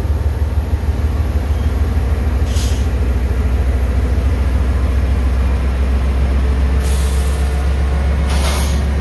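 Norfolk Southern diesel-electric locomotives passing close by at slow speed, their engines giving a loud, steady low rumble. Three short hisses come over it: one about two and a half seconds in, one around seven seconds, and a longer one near the end.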